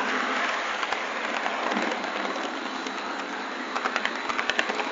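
Model train running along the layout's track, a steady rushing noise of wheels on rail, with a quick run of sharp clicks about four seconds in as it rolls over pointwork.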